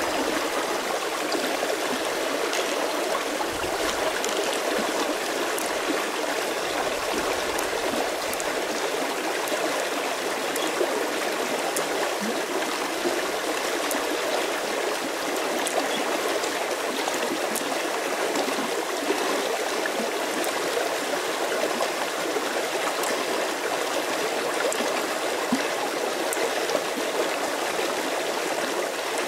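Steady rushing of a flowing river stream, with a few faint clicks over it.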